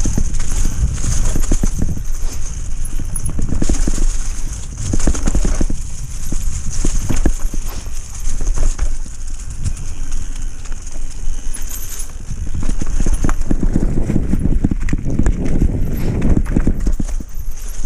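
Mountain bike rattling and knocking over a rough forest singletrack, tyres rolling through dry leaf litter, with a steady low rumble of wind on the microphone.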